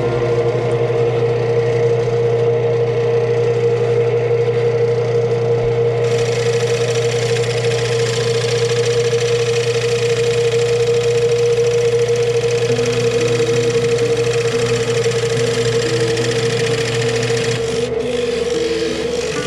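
Wood lathe motor running with a steady hum while a turning tool cuts the inside of a spinning cherry bowl, throwing off shavings. The hiss of the cut gets louder and brighter about six seconds in.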